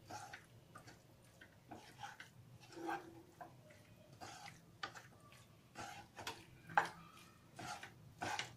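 Wooden spatula stirring cooked pasta in sauce in a pan, knocking and scraping against the pan in a scatter of soft, irregular clicks, one sharper knock about two-thirds of the way through.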